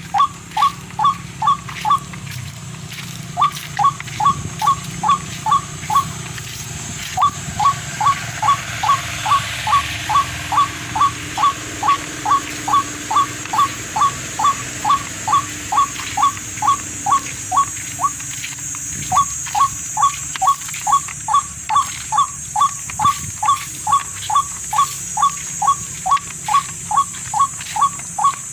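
An animal calling over and over: short identical notes, about three a second, in long bouts with brief pauses, over a steady hiss.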